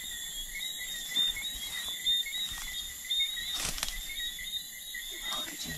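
Night chorus of frogs and insects, a steady high-pitched chirping that goes on throughout, with a short rustle of brush about three and a half seconds in.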